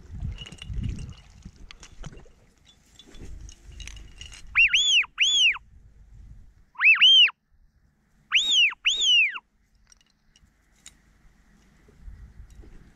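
Rustling and knocks, then loud whistled calls in clear notes that rise and fall, mostly two at a time, heard three times in the middle.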